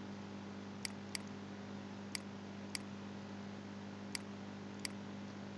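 Computer mouse button clicking six times, short sharp clicks about a second apart, over a steady low electrical hum.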